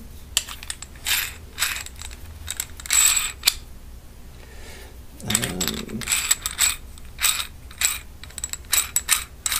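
An inexpensive drill-press chuck's sleeve being twisted by hand, giving irregular sharp metallic clicks and short rasps in clusters as the jaws run in and out. The mechanism is still a little gritchy.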